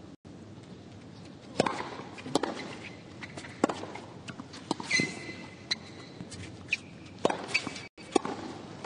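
Tennis rally on a hard court: sharp pops of racket strikes and ball bounces, about one a second, with a brief shoe squeak about five seconds in.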